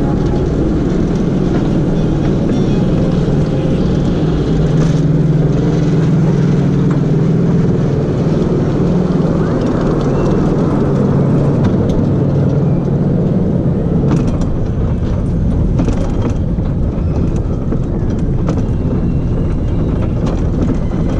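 Bobsled roller coaster train on its chain lift, a steady mechanical hum and rattle as it climbs. About halfway through, the train runs off into the steel-tube trough and the sound turns to a rolling rumble of the wheels, with scattered clacks.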